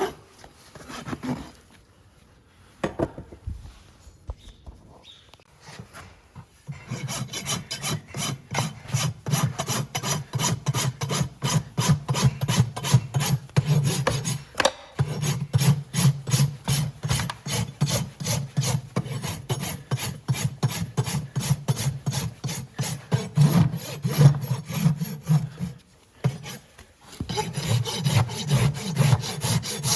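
Farrier's hoof rasp filing a horse's hoof in rapid, even strokes. Only a few scattered strokes come in the first few seconds, then the rasping runs steadily, with short pauses about halfway and near the end.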